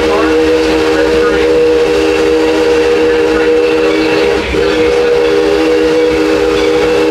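Steam locomotive's chime whistle on the Six Flags Railroad blowing two long blasts, several notes sounding together as one chord, with a very short break between them about four and a half seconds in.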